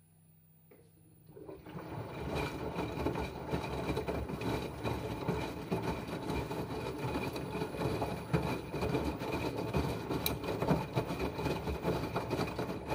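Loud, dense crackling and rumbling noise that starts about a second in and cuts off abruptly near the end.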